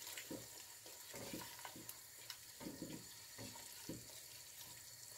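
Spatula stirring a tomato and wine sauce in a stainless steel pressure-cooker pot: faint, irregular soft scrapes and taps against the pot over a light sizzle of the simmering sauce.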